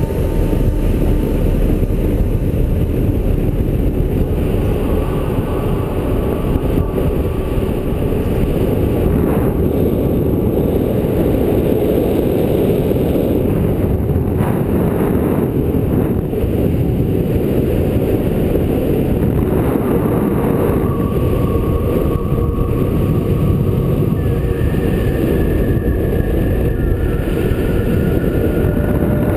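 Steady wind rush buffeting the camera microphone of a paraglider in flight, a loud low rumble of airflow. A few faint thin high tones come and go over it.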